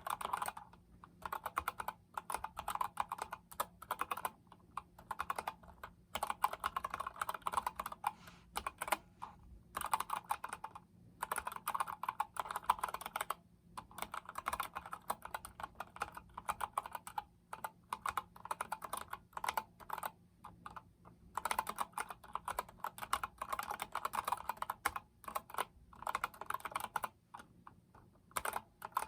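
Typing on an Epomaker GK73X mechanical keyboard with Gateron Yellow linear switches: rapid key clicks in runs of a few seconds, broken by short pauses.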